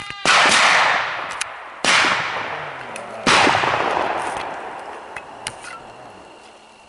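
Three shotgun shots fired at flushed pheasants, about a second and a half apart. Each is followed by a long echo that dies away over more than a second.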